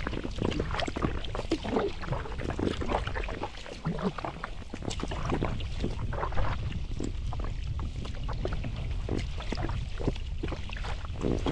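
Kayak paddle strokes in water: irregular splashing and dripping as the blade dips, with water sloshing along a small plastic kayak's hull.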